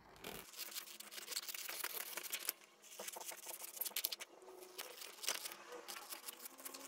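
Scissors cutting through printed paper pattern sheets: a run of faint, quick snips with paper rustling, broken by a short pause about two and a half seconds in.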